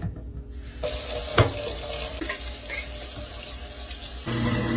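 Kitchen tap running into a stainless-steel sink while a glass jar is rinsed under it, with a sharp knock about a second and a half in. Near the end a louder steady low hum joins the running water.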